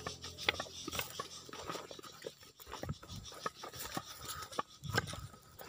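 Footsteps on a dry dirt and grass path: irregular soft crunches and scuffs of feet on gravelly soil, grass and dry leaves.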